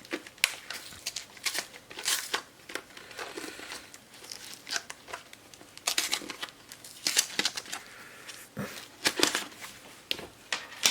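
Plastic packaging crinkling and rustling in short, irregular bursts while a 2.5-inch SSD is handled.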